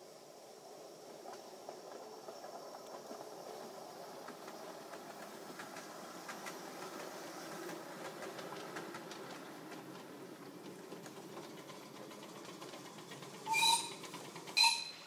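A 5-inch-gauge live-steam miniature train running past: a low rumble of wheels on rail with light clicks, building and then fading away. Near the end come two short shrill squeaks, louder than the train.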